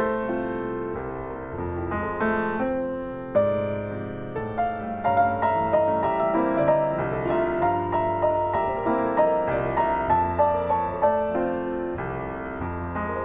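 Solo piano playing a slow, gentle piece: a melody of single notes over held chords, with the melody coming forward about three seconds in.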